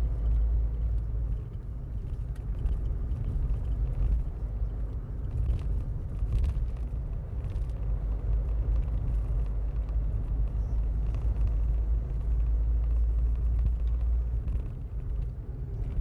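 Steady low rumble of a car driving at road speed: engine and tyre noise heard from inside the cabin.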